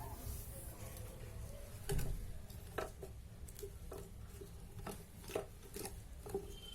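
Kittens playing on a hard floor: scattered light taps and scrapes of paws and claws, with one heavier thump about two seconds in.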